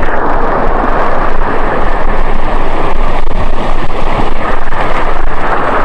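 Fast-flowing mountain creek water rushing loudly and steadily.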